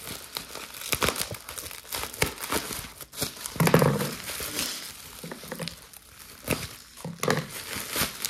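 Plastic bubble wrap crinkling and crackling as hands pull it open. The handling noise is irregular, with a louder, duller patch about four seconds in.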